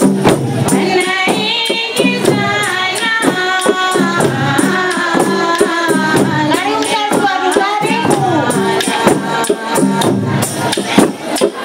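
A woman singing into a microphone over a steady percussion beat with a rattling, jingling edge. Her melodic line with held, wavering notes comes in about a second in and drops out at about eight seconds, leaving the beat going.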